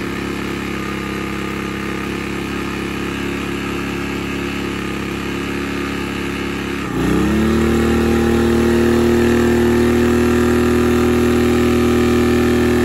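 Sportsman 1000-watt inverter generator running steadily at its low economy-mode speed. About seven seconds in, the engine dips for a moment, then speeds up and holds a higher, louder pitch as it takes up the load of the space heater switching on.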